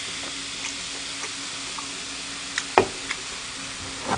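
Carbonated soda fizzing steadily in a plastic mug as it is poured from a can, the hiss thinning out near the end. Two light knocks in the second half.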